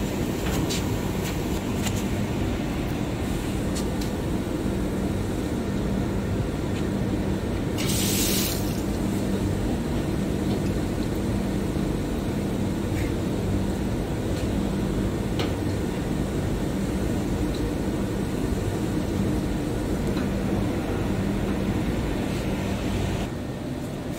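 Steady hum of running machinery with a constant low drone. About eight seconds in there is a brief hiss lasting about a second, and a few light ticks from handling.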